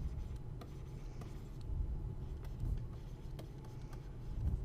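Low steady background rumble with a few faint, scattered taps or clicks.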